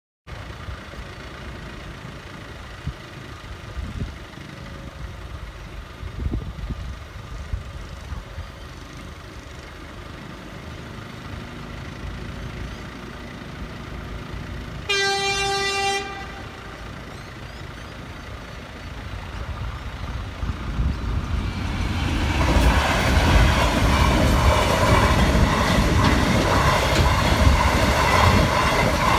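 A freight train's horn sounds one blast of about a second. Then the container freight train comes up and passes over the level crossing, its wagons rumbling and clattering, louder over the last third as they go by close up.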